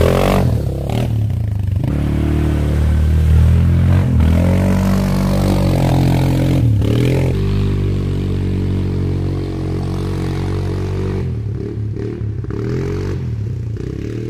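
Yamaha Grizzly ATV engine running under load, its revs rising and dipping as it is ridden through mud and water.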